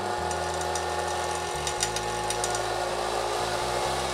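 Treadmill DC motor driving a Harbor Freight wood lathe, speeding up as its speed control is turned from a few hundred rpm to well over 2,000 rpm. The running sound gets gradually louder, with a few faint ticks about two seconds in.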